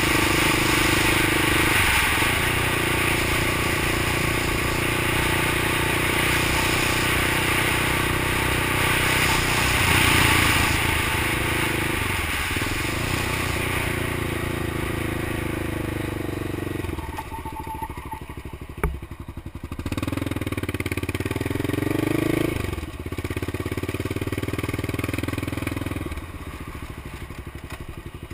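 Honda XR650L single-cylinder four-stroke engine powering a three-wheeler, running under way. It dips briefly at gear changes about two and twelve seconds in and eases off around seventeen seconds. The revs then climb again before another sharp drop and settle lower near the end. A single sharp click comes near nineteen seconds.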